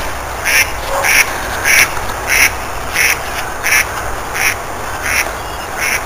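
A person's footsteps crunching across grass at a steady walking pace, about three steps every two seconds, over a low rumble.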